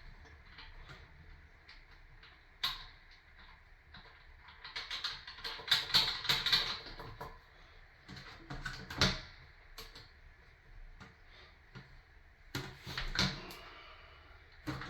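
Plastic clicks, taps and rattles of toilet seat hinge hardware being handled and snapped into place, with a busier run of rattling near the middle and single sharp clicks scattered through.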